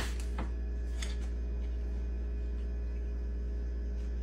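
A steady low hum, with a sharp click at the start and a few fainter clicks within the first second.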